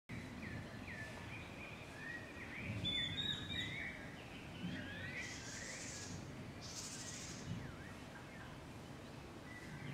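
Outdoor ambience with several small birds chirping and calling in short rising and falling notes, and two brief hissing swells about midway.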